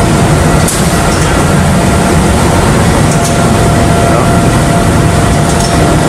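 Framo portable hydraulic cargo pump running at minimum hydraulic pressure: a loud, steady mechanical drone with a faint steady whine over it, and a few faint clicks.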